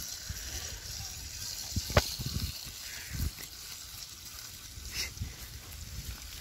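Soft knocks and rustles from fried chicken pieces being set into a banana-leaf-lined clay pot, with a sharp click about two seconds in, over a steady hiss.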